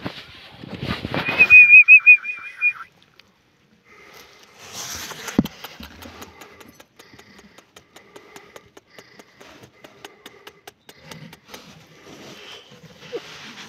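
A loud, high, quavering squeal lasting about a second and a half, typical of a pigeon squab begging, cuts off about three seconds in. It is followed by light rustling of nest straw with many small clicks as a hand handles the chicks.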